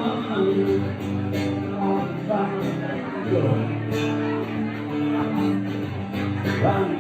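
Acoustic guitar strumming chords in an instrumental passage of a song, without singing.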